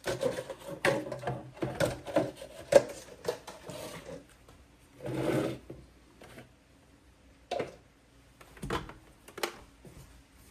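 A quick run of knocks and clatter for about four seconds, then a short noisy burst and a few single knocks.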